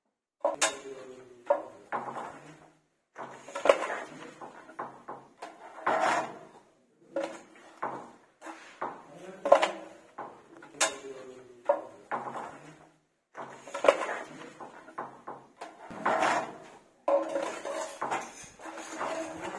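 Steel putty blade scraping wall putty across a wall in repeated strokes, one every second or two, each a short scrape, some with a faint squeal.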